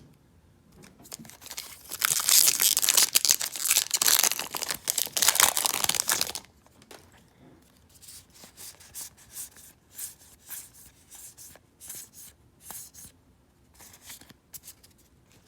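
Magic: The Gathering Core Set 2020 booster pack's foil wrapper being torn open and crinkled for about four seconds, starting about two seconds in. Then soft clicks and rustles of the cards being handled.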